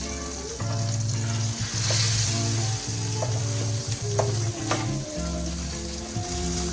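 Food sizzling in a frying pan, with a few sharp clicks of a utensil against the pan. Background music with held bass notes plays underneath.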